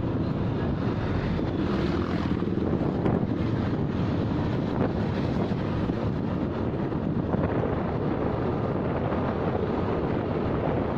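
Wind buffeting the microphone over a motorcycle engine running steadily while riding in town traffic.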